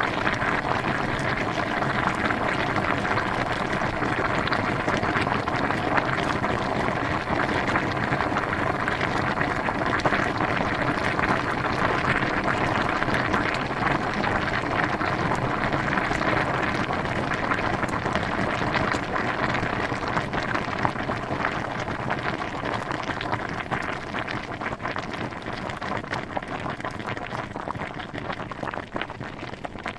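Water at a rolling boil: a dense, steady bubbling full of small pops, growing a little quieter over the last third.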